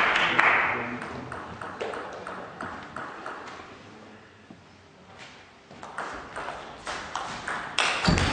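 Applause dying away, then a table tennis ball bounced on the table before the serve, about three sharp clicks a second. After a short lull a rally starts: the ball clicking off the table and bats, growing louder near the end.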